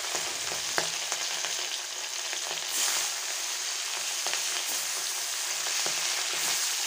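Bata fish frying in hot oil in a kadai: a steady sizzling hiss with scattered spitting pops, growing louder a few times as more fish are slid in.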